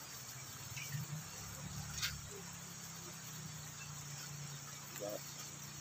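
Quiet outdoor background: a steady low hum under a faint even hiss, with one sharp click about two seconds in.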